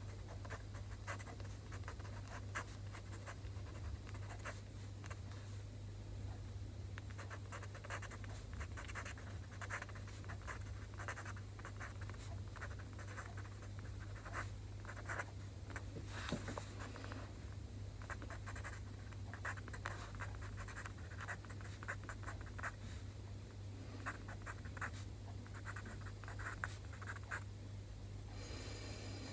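Pen writing Chinese characters on a sheet of paper: short scratchy strokes in quick irregular runs, with a steady low hum beneath.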